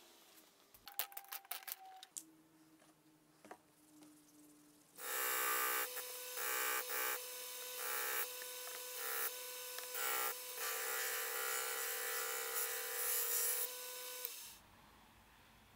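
Disc sander running, grinding the edge of a wooden strip that carries a steel ruler: a steady motor hum under a harsh sanding noise that dips briefly several times. It starts about five seconds in and cuts off abruptly near the end, after a few light clicks.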